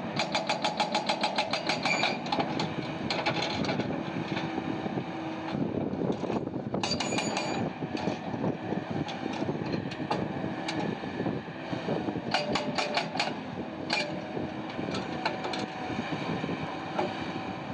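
Heavy diesel mining machinery running, with a rapid even clatter for the first couple of seconds, then a steady rumble broken by sharp metallic clanks and rattles, as of rock and steel working in an excavator-fed crusher.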